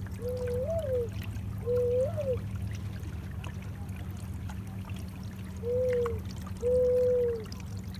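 Water trickling and lapping along a moving canoe, over a steady low rumble. Short squeaky tones at a middle pitch, some bending up and back down, come irregularly several times and are the loudest sound.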